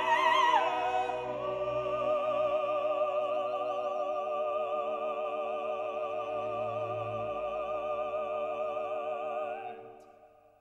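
Background music: operatic singing with orchestra, the voices holding one long note with vibrato that fades away near the end.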